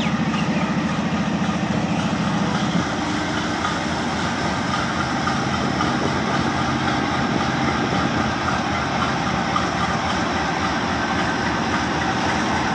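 Pakistan Railways AGE-30 diesel-electric locomotive No. 6021 running under power as it pulls slowly away and passes close by, a loud steady engine drone with a rapid low pulse. The low engine note eases slightly about three seconds in.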